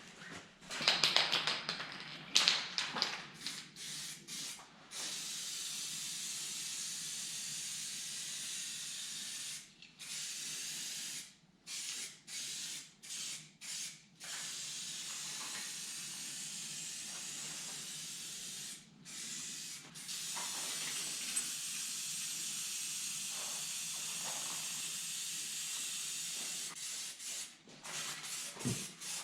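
Aerosol can of weld-through primer spraying in long hisses, stopping and restarting many times as the nozzle is released and pressed again. A few sharp knocks and clatter sound in the first couple of seconds.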